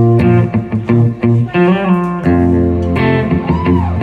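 Live band playing a two-chord groove: electric guitar, bass guitar and drums together, with a couple of notes bending up and back down in pitch.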